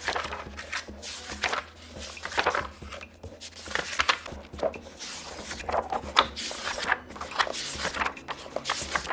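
Paper pages being turned one after another, a quick swish of paper every half second or so in irregular succession.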